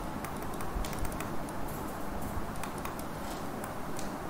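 Light, irregular clicks and taps of a pen stylus on a tablet screen during handwriting.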